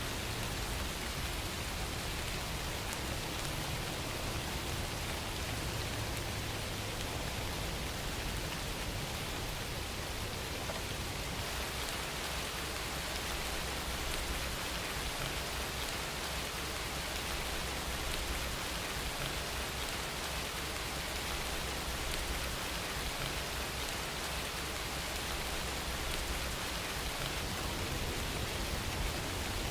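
Steady rain falling and pattering on surfaces, an even, unbroken hiss with no thunder or other events.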